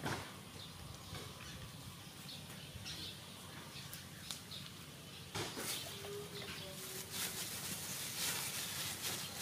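Outdoor background with faint, scattered bird chirps and a few soft clicks and rustles.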